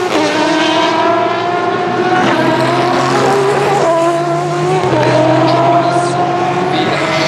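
Hypercar-class endurance prototype race car engine accelerating hard through the gears. The engine note climbs steadily and drops sharply at each upshift, twice in the middle of the stretch.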